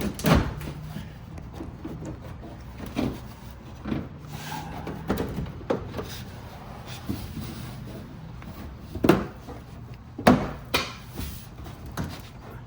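Plastic wheel well liner knocking and scraping against the truck's wheel well as it is pushed into place: scattered irregular knocks, the loudest two about nine and ten seconds in.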